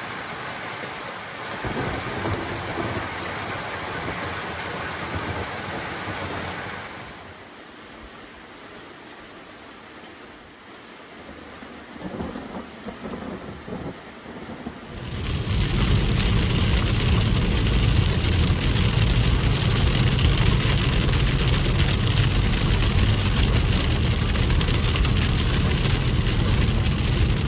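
Thunderstorm: steady rain with rumbles of thunder, quieter for a stretch in the middle. From about halfway, louder rain on a moving car heard from inside the cabin, with deep road noise.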